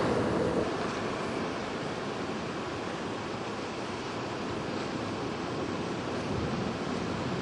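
Ocean surf washing against a rock breakwater, with wind buffeting the microphone: a steady rush of noise without distinct events.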